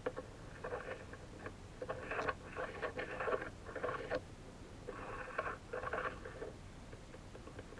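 Brass compound-rest slide being pushed back and forth by hand along its freshly milled ways in a test fit, making short scraping strokes with a faint squeal. There are about six strokes, four in quick succession and then two more after a short pause.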